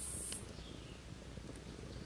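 A thin stream of liquid trickling into a clay pot over a wood fire, with a few faint crackles from the fire near the end. A steady high hiss cuts off suddenly about half a second in.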